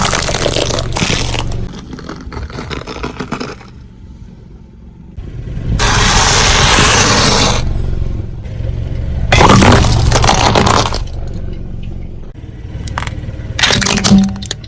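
A car tyre rolling over and crushing objects in four separate bursts of noise, the longest and loudest about six seconds in, over the low hum of the car's engine running.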